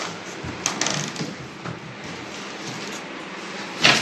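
Cardboard packaging rustling and scraping as a one-piece ceramic toilet is lifted out of its box, in uneven bursts, with a louder burst of noise near the end.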